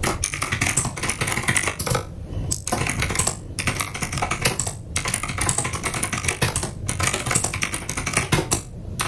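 Rapid typing on a mechanical keyboard: a fast run of key clicks with brief pauses every second or so.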